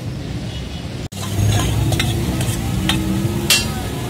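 Pav bhaji sizzling on a large iron tawa griddle, with metal spatula and steel bowl clicking and scraping against it several times; the sharpest clink comes about three and a half seconds in. Before that, for about a second, a steady street background, cut off abruptly.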